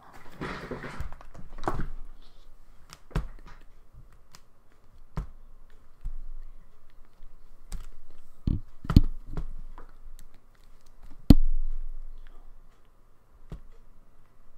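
Irregular clicks and knocks close to the microphone, with a soft rustling burst at the start and the loudest knock about eleven seconds in.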